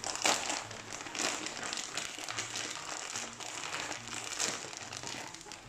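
Zucchini and chicken in a creamy sauce simmering in a pan on the hob, a steady run of small crackles and pops.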